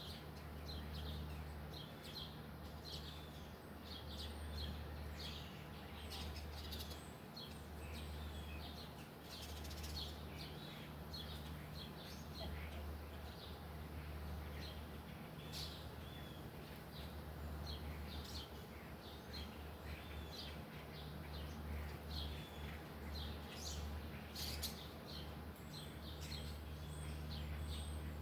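Baby squirrel giving many short, high chirps and clicks in quick irregular runs, over a steady low hum.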